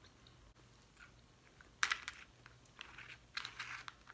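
Crab shells being handled and cracked by hand: a sharp crack a little under two seconds in, then a run of small crackles and clicks near the end.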